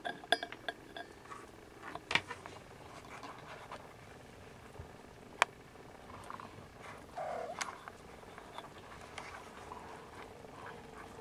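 A litter of Snowshoe Siamese kittens jostling and nursing: scattered light clicks and clinks, a sharp click about five seconds in, and a short falling call about seven seconds in.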